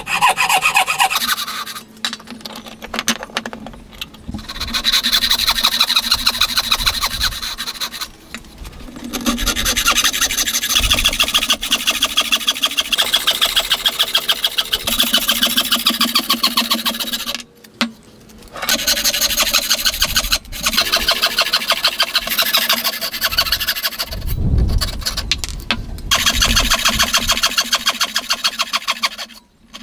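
Wooden frame saw cutting by hand through a wooden block, in quick rhythmic back-and-forth rasping strokes. The sawing stops briefly several times and starts again.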